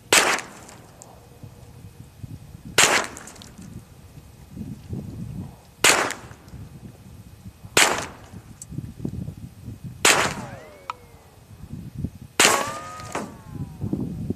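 Six single shots from a Hi-Point 995TS 9mm carbine firing aluminum-cased ammunition, spaced about two to three seconds apart, each a sharp crack. The last two shots are each followed by a whine that sinks in pitch.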